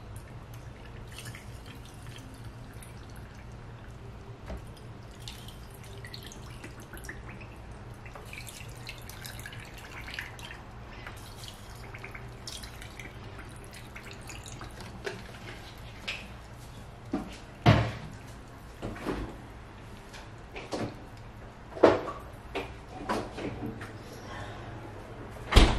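Water poured from a plastic pitcher into glass canning jars packed with peppers, trickling and dripping, over a low steady hum. In the last third, a string of sharp short knocks and clinks.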